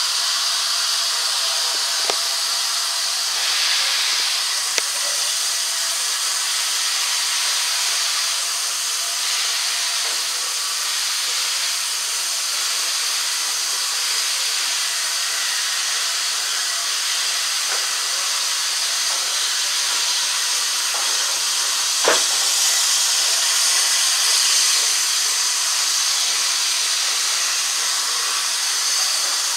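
Steady hiss of steam from the LNER A3 Pacific locomotive 60103 Flying Scotsman as the train pulls away, heard from a carriage window behind it. A single sharp knock comes about two-thirds of the way through.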